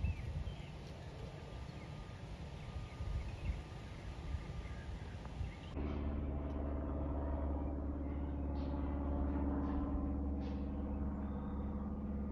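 Open-air noise with low wind rumble on the microphone, then after an abrupt cut about six seconds in, the steady low drone of an aircraft passing overhead, with a few short high chirps over it.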